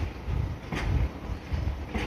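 Freight wagons of a shunted Hoki 10000 coal hopper train giving sharp metallic impact clanks between the cars, one at the start and another just under a second in, over a low rumble with wind on the microphone.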